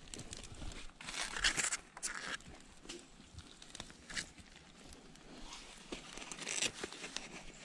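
Hands digging into an animal burrow, scraping soil and tearing at roots and dry leaves in short rustling scrapes. The loudest scrapes come about a second and a half in and again near the end.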